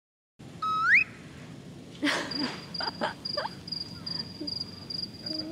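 Outdoor ambience with a high, thin chirp repeating evenly about two or three times a second and a few sharp knocks, after a short rising whistle near the start.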